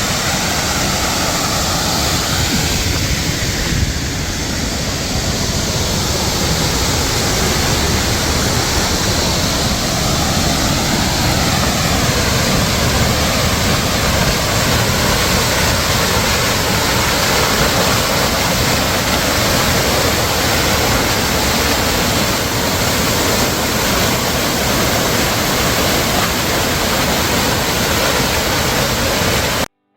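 Water rushing steadily over a small natural waterfall in a mountain stream, a dense even roar that cuts off abruptly near the end.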